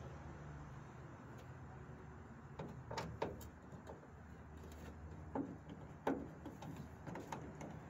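Ratchet wrench working a tail light mounting bolt, making scattered sharp clicks and knocks, with the loudest ones about three seconds in and again around six seconds in.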